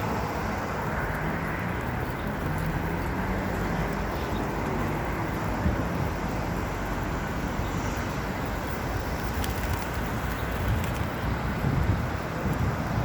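Steady outdoor rumble of city traffic, with gusts of wind on the microphone growing near the end.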